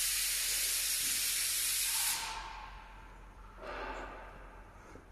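Loud hiss of compressed air from the wheel balancer's pneumatic automatic wheel clamp, cutting off about two seconds in and trailing away, then a second, shorter and softer hiss of air about three and a half seconds in.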